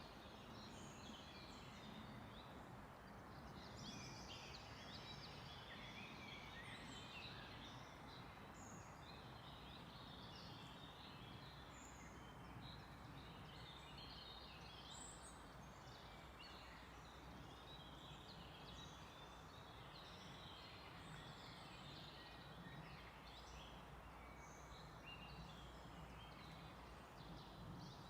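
A chorus of forest birds singing and calling: many short chirps and trills overlapping throughout, faint over a steady background hiss.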